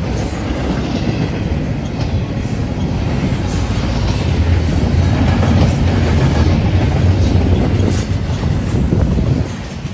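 Freight train cars rolling past: a steady heavy rumble of steel wheels on rail with scattered clanks, growing louder toward the middle.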